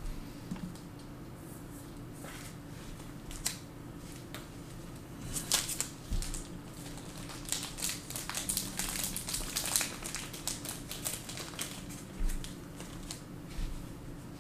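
Trading card packaging crinkling and cards being handled, a dense run of quick crinkles and clicks from about five seconds in, over a steady low hum.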